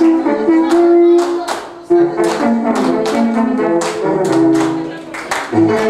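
Music: a melody in held notes over a steady percussive beat.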